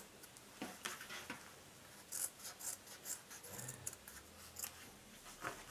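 Scissors snipping through sewn fabric in faint, short, irregular cuts, trimming the seam allowance of a bag.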